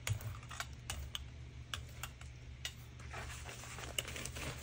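Irregular light clicks and ticks from a rubber brayer being worked on a gel printing plate loaded with wet acrylic paint. From about three seconds in, a sheet of paper rustles as it is picked up.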